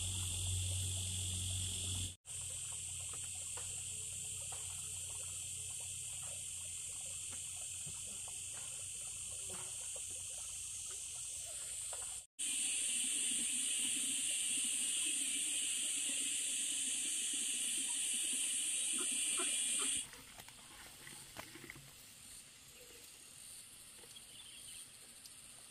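Steady high-pitched chorus of insects buzzing without a break, cut off for an instant twice. It drops away near the end, leaving faint scattered ticks.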